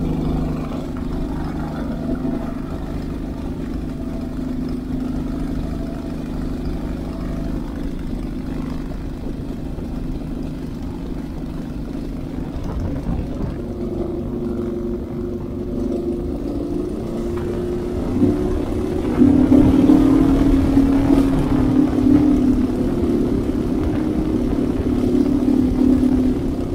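Minimax 1100R ultralight's Hummel aircraft engine and propeller running on a break-in run: steady just off idle at first, then throttled up from about halfway through, rising in pitch and getting louder for the last several seconds.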